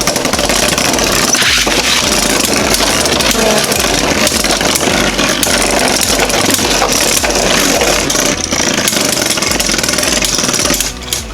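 Two Beyblade spinning tops, a 3D-printed Jynx Ouroboros and a Union Spriggan with metal swords, whirring and rattling as they clash and grind against each other in a Beyblade stadium, with rapid clicking hits throughout. The din drops off near the end as the battle ends in a spin finish.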